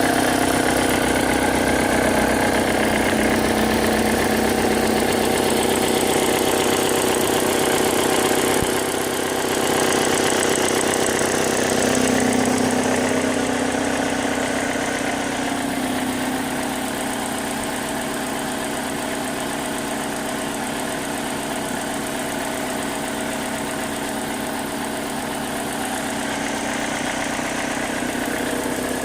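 A 2005 Chevy Cobalt's 2.2-litre four-cylinder engine idling steadily, its level dropping a little about sixteen seconds in.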